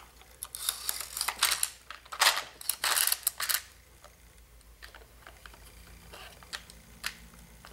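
McFadden Ultimate Clip Loader being worked: .22 LR cartridges rattle, scrape and click as they feed into a Ruger Mark III 22/45 magazine. A busy run of rattling in the first few seconds is followed by a few light clicks as the last round goes in.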